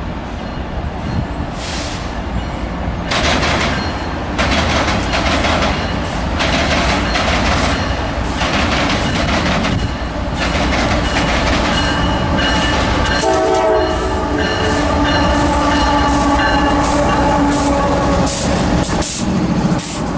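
A lashup of six GE diesel locomotives running light, with engines and wheels approaching and passing close by. About two-thirds of the way in, the lead unit's horn sounds a multi-tone chord held for several seconds. Near the end, wheels click over rail joints as the units go by.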